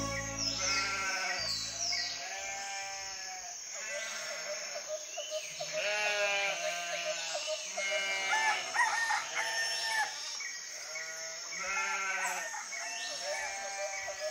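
A run of animal calls: wavering pitched cries about a second long, several overlapping, coming every second or two. A keyboard chord fades out in the first two seconds, and a faint steady music drone stays underneath.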